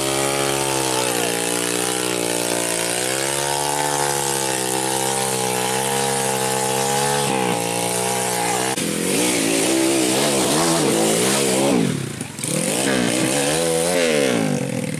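Trail motorcycle engines revving: held at a fairly steady pitch with slow swells at first, then rising and falling quickly as the throttle is worked, with a brief drop about twelve seconds in.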